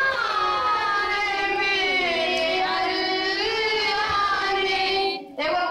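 A young female voice singing a naat, an Urdu devotional poem in praise of the Prophet, into a microphone, drawing one long, ornamented line out over slow rises and falls in pitch. She breaks off briefly about five seconds in and starts again.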